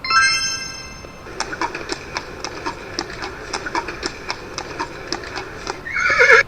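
A brief ringing chime, then a horse's hooves clip-clopping at a steady walking pace, about three strikes a second. Near the end the horse starts to neigh, a wavering whinny.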